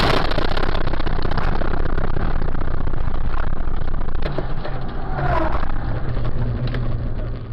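A car driving at road speed, heard from inside the cabin: a steady, loud low engine hum with tyre and wind noise that cuts in suddenly.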